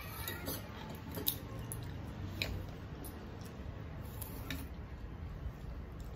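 Eating sounds: scattered wet clicks and smacks of chewing and of fingers mashing rice with curry, over a low steady hum.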